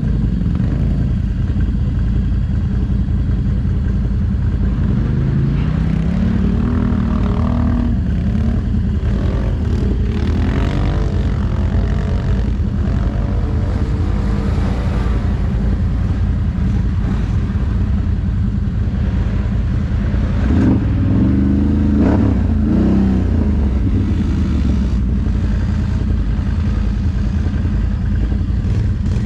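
Can-Am ATV engines running steadily, with the revs rising about six seconds in and again about twenty seconds in.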